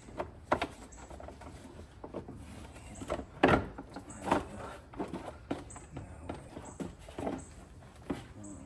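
Irregular clicks, knocks and rattles of parts being handled and fitted by hand in a car's engine bay as an air filter box is worked into place, the loudest knock about three and a half seconds in.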